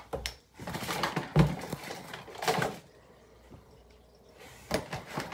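Hands rummaging through a box of makeup products: packaging rustling and small bottles knocking together, in irregular bursts with sharper knocks near the start and near the end.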